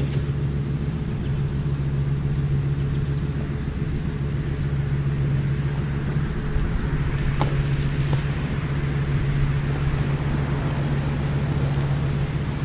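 A vehicle engine idling steadily close by, with an even low hum. About seven seconds in, a short swish and a sharp click as a thrown rope goes up through the tree's branches.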